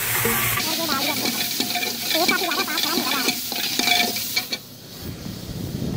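Water poured into hot ghee and browned onions in a large aluminium deg, hissing and sizzling as it hits the hot fat. About half a second in, a long metal ladle starts stirring, clinking and scraping against the pot.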